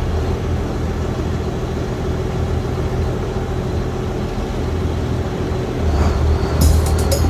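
Boat engine running steadily with a low drone. Near the end, music with a beat comes in over it.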